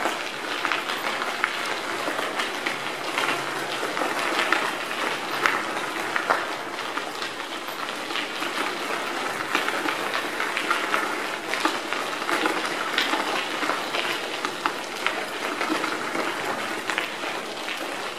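Bicycle tyres rolling over a gravel rail-trail surface: a steady crunching hiss scattered with many small clicks and rattles.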